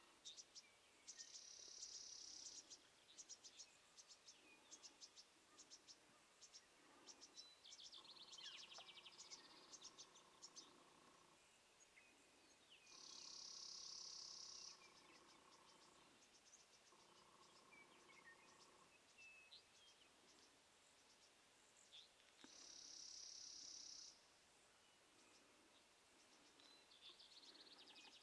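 Faint outdoor ambience of insects and small birds. An insect buzz sounds three times, each for about two seconds, over scattered small bird chirps and ticks.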